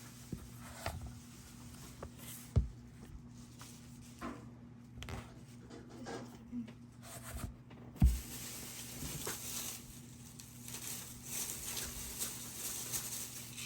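Quiet handling of an iPad and Apple Pencil: scattered soft clicks and taps, with two sharper knocks, one about two and a half seconds in and a louder one about eight seconds in.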